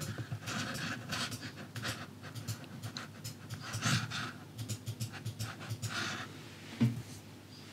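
Panting breaths, with one sharp knock near the end.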